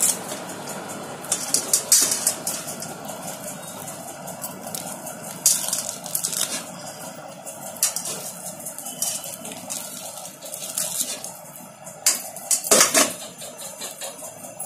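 Skin being torn and peeled by hand off a ripe palmyra palm fruit, giving irregular scratchy tearing and rubbing noises in short bursts, the loudest about 13 seconds in, with the fruit shifting in a steel bowl.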